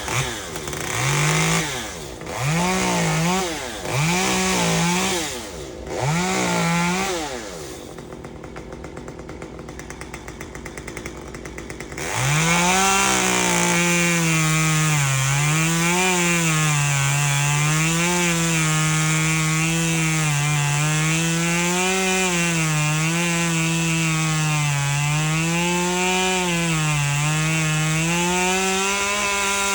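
Two-stroke chainsaw revved in four short bursts, dropping back to idle, then held at full throttle cutting into the tree. Its pitch sags and rises as the chain loads up in the wood.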